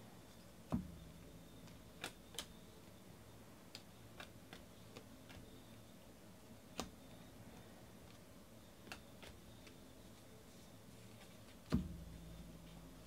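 Baseball trading cards being flipped through by hand: scattered faint clicks and snaps of card edges, with a soft thump about a second in and a louder one near the end.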